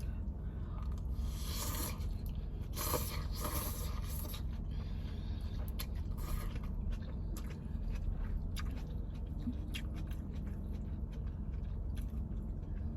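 Utensil scraping and stirring lo mein noodles in a takeout container, with two longer rustling scrapes in the first few seconds, then eating with many small clicks and chewing. A steady low hum runs underneath.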